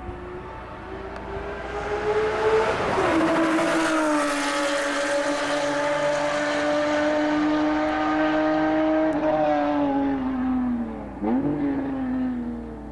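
Honda NSX V6 through a GT Design aftermarket exhaust, driven hard on a race track. The engine note rises for the first two or three seconds, drops sharply, then holds steady and loud; it steps down about nine seconds in and falls away, with a quick dip and rise in pitch near eleven seconds.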